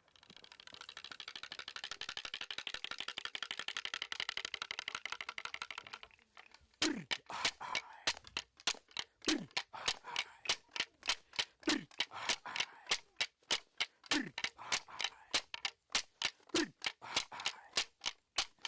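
A high buzzing drone for about six seconds that stops abruptly. Then a steady beat of sharp clapstick strikes, roughly two and a half a second, with a short low falling sound about every two and a half seconds.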